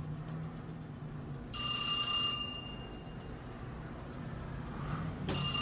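Telephone bell ringing twice, each ring about a second long with a fading tail. The second ring starts near the end. A low steady hum runs underneath.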